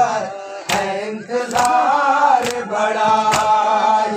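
A group of men chanting a noha together, with sharp chest-beating (matam) slaps in a steady beat a little under once a second.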